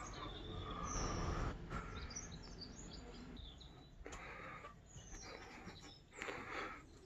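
Small birds chirping on and off, with a low rumbling noise on the microphone in the first second and a half.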